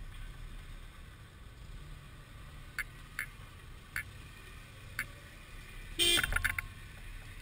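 Lifted Toyota 4Runner crawling slowly over a dirt ledge, its engine a low steady rumble, with a few scattered clicks and a short loud burst of squeaks and knocks about six seconds in as the truck flexes over the ledge.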